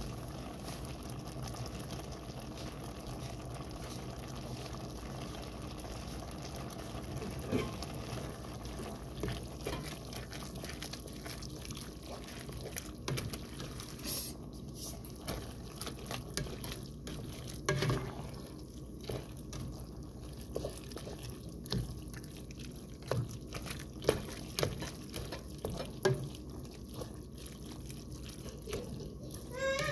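Pasta and ground meat simmering in liquid in a pan, with a steady bubbling hiss. From about a quarter of the way in, a spatula stirs through the wet pasta, with irregular clicks and knocks against the pan.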